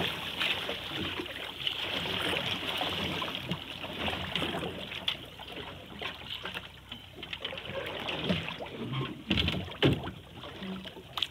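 Water lapping and splashing against the hull of a small outrigger boat on open sea, with a few knocks from gear being handled in the boat near the end.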